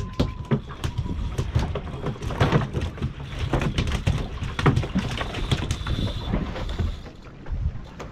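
Low rumble of wind and water on a fishing boat, with scattered clicks and knocks from rods and spinning reels being worked.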